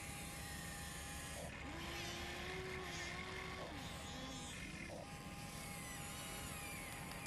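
Small electric motors of a Huina radio-controlled toy excavator whining as it works its boom and swings its upper body, the whine rising and falling in pitch over a steady higher tone.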